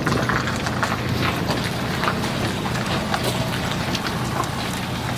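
A vehicle engine idling with a steady low hum, overlaid by scattered irregular clicks and knocks.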